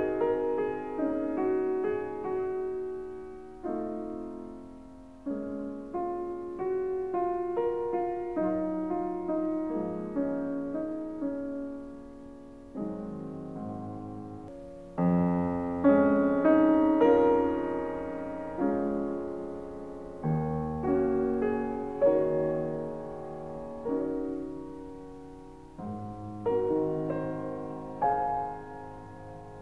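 Background solo piano music: notes and chords struck and left to fade, growing louder about halfway through.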